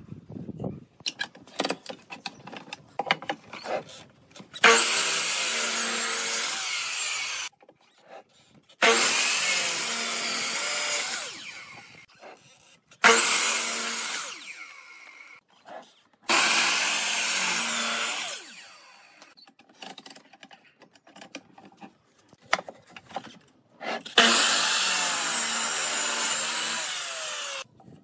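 Sliding compound miter saw making five crosscuts through a wooden block. Each time the motor starts suddenly, runs through the cut with a steady hum for about three seconds, and winds down. Between cuts there are light knocks as the wood is handled.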